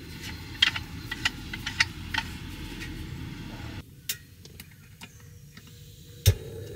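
Metal cookware clinking and rattling as a small frying pan is taken out of a padded pouch. About six seconds in comes a single sharp click from the Soto regulator camping stove's piezo igniter, and the gas burner starts hissing steadily as it lights.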